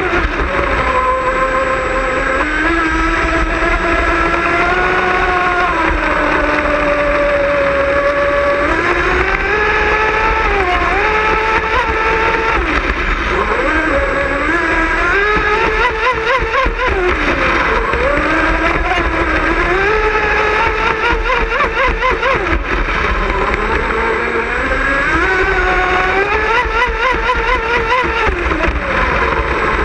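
Pro Boat Miss Geico RC racing catamaran's motor running at speed, its whine rising and falling with the throttle and wavering rapidly in stretches, over a rush of water and wind.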